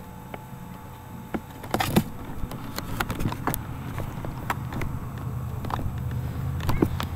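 Handling noise from a handheld camera: scattered clicks, knocks and rubbing against the microphone over a low steady rumble.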